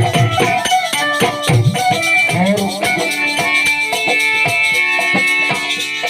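Instrumental interlude of a Hindi bhajan: a melody instrument playing over a steady rhythm of hand drums and a shaker, with low drum strokes that bend in pitch.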